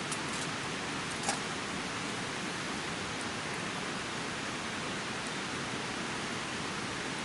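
A steady, even rushing hiss with a few faint sharp ticks, the clearest about a second in.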